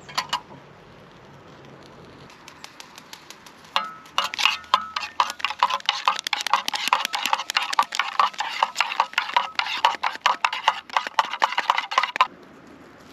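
Metal fork scraping and stirring food in a tuna tin, rapid clinking scrapes against the tin. A few light taps come first, then quick, continuous strokes for about eight seconds that stop suddenly.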